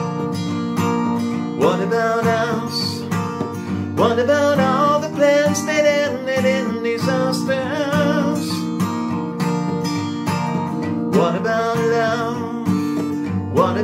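Acoustic guitar strummed with a capo, with a man singing along in phrases that start about 2, 4 and 11 seconds in.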